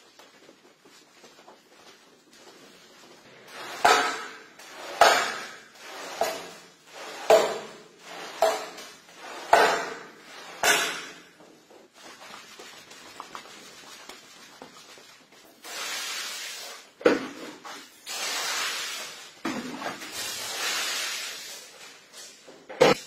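A squeegee scraping dirty detergent foam and water off a soaked shag rug, about seven wet strokes a second apart. These give way to stretches of hissing liquid and a few soft thuds as the rug is stood on, with a sharper knock near the end.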